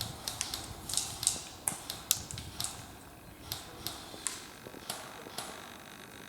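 A series of irregular sharp clicks and snaps, densest in the first two seconds and sparser after.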